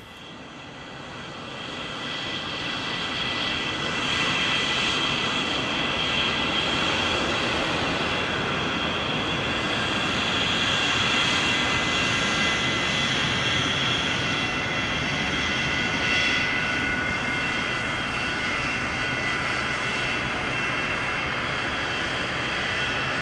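Jet aircraft noise on an airport apron: a steady high whine over a broad rumble, fading in over the first few seconds and then holding level.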